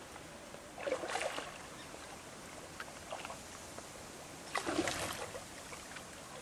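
Water splashing at the side of a boat, in two short bursts about a second in and again near five seconds, with a smaller splash in between, over a steady background hiss.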